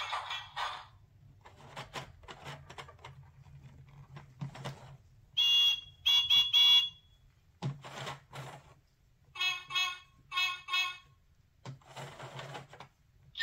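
Electronic toots from a children's Play-a-Sound book's small speaker: a two-part toot about five seconds in, then three short identical blips in quick succession around ten seconds. In between come clicks and rattles of plastic gears being turned and the book being handled.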